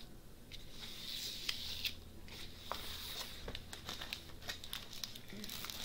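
Large diamond painting canvas sheet rustling and crinkling as it is handled and shifted on the table, with scattered light papery clicks.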